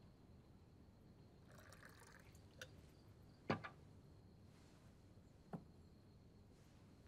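A brief, soft pour of wine into a cup, then three light clicks like vessels set down on a table, the loudest about halfway through, over near-silent room tone.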